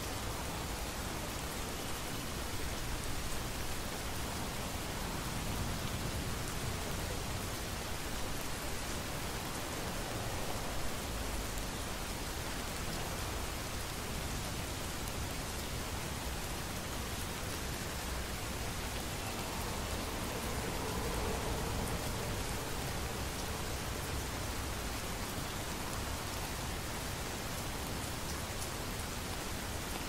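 Steady, heavy rain pattering on surfaces, with low rumbles of distant thunder swelling and fading twice.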